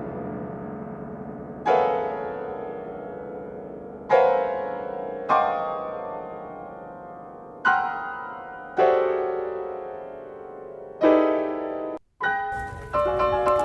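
Solo piano playing loud, widely spaced chords, six of them, each struck hard and left to ring and fade. Near the end the sound breaks off for a moment and a faster, busier passage of repeated high notes begins.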